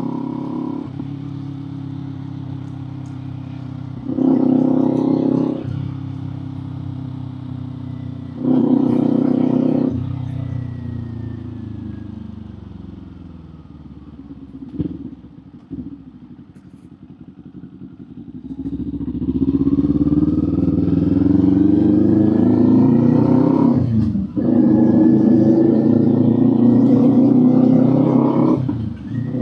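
Kawasaki Z400 parallel-twin engine through an aftermarket muffler, ridden on the road. It gives two short throttle bursts, then drops back to a quiet, falling note. About two-thirds through it pulls away with a rising pitch, broken by a brief dip for a gear change and another just before the end.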